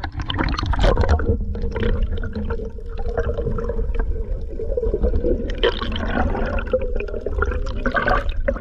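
Water splashing and sloshing, with a low rumble and a steady hum underneath and a few louder splashes along the way.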